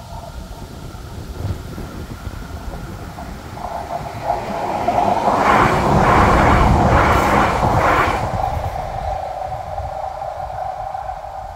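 Roslagsbanan X10p narrow-gauge electric train passing over a level crossing, building to its loudest about six seconds in with several wheel clacks over the rail joints, then fading away. The crossing's electronic warning bells ring steadily throughout.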